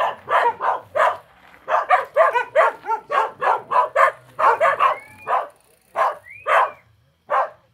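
Dog barking repeatedly, in quick runs of several barks, thinning to single barks near the end.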